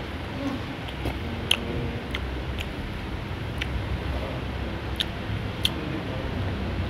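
Close-up eating sounds: a person chewing, with scattered sharp mouth clicks and lip smacks, over a steady low background rumble.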